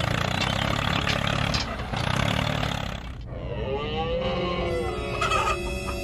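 Steady motor noise with a low rumble for about three seconds, cut off suddenly. Then one long pitched call that rises and falls, and a held droning tone that starts near the end.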